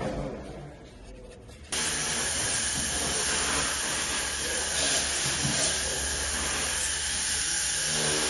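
A loud, steady hiss that starts abruptly about two seconds in and runs on evenly.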